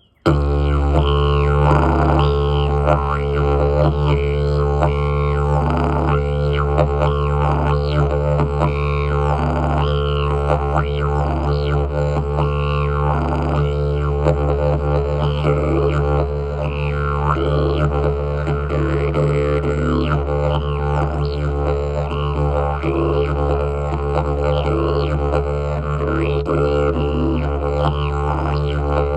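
Long didgeridoo played in a rhythmic jam: a steady low drone with overtones that shift and pulse in a rhythm above it.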